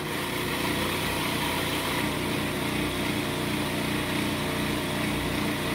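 Food processor motor running at a steady speed, its blade churning raw spinach leaves and flour into a dough.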